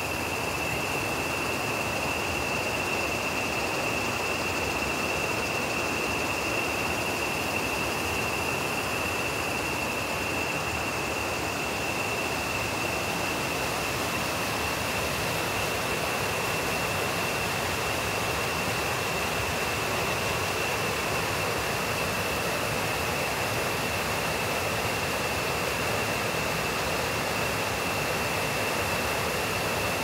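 Shallow rocky stream rushing and splashing over boulders and cobbles in a steady rush of water, with a steady high-pitched tone held over it.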